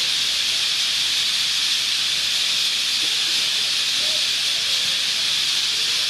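Massed calling of a huge roosting flock of parrots and parakeets, thousands of screeches merging into one dense, steady high-pitched hiss that never lets up.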